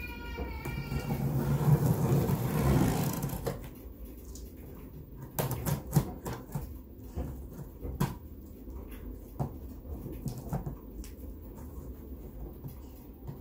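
Cardboard box being opened and unpacked by hand. A short squeak at the start is followed by a loud scraping rasp lasting about two seconds, then scattered knocks, taps and rustles of cardboard and packing being handled.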